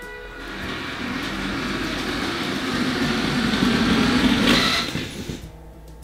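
Lego City 60098 Heavy-Haul Train locomotive and wagons running on plastic Lego track: a rattling rumble of wheels and motor that grows louder as the train comes close, then cuts off about five seconds in as the train stops under the crane.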